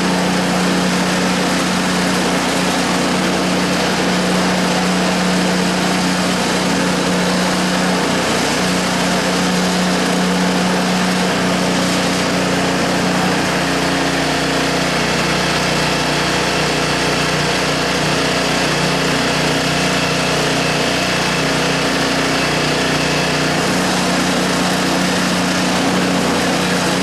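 Small single-cylinder snowblower engine running steadily at a constant speed.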